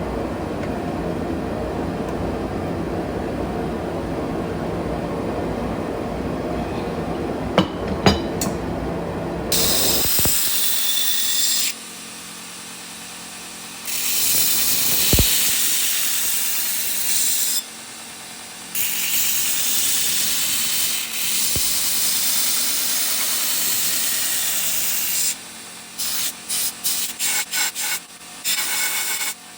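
A steady low rumble for about the first ten seconds. Then a loud hissing scrape of abrasive work on steel stops and starts abruptly several times and breaks into quick short strokes near the end: the shaping of the forged spike knife.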